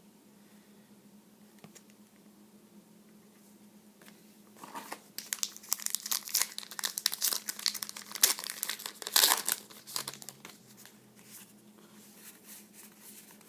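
Trading-card pack wrapper crinkling as it is torn open and handled: a dense crackle that starts about four and a half seconds in, is loudest about eight to nine seconds in, and dies away near ten seconds, over a faint steady hum.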